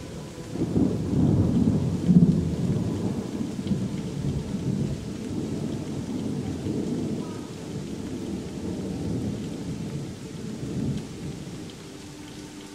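A long roll of thunder over steady rain. The low rumble swells about half a second in, peaks around two seconds, then rolls on and slowly fades over about ten seconds.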